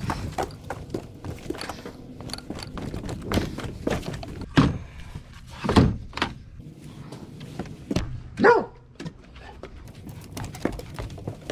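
Knocks and footsteps on a wooden dock as electric trolling motors are carried and handled at a canoe, with a dog barking a few times, the loudest about four and a half, six and eight and a half seconds in.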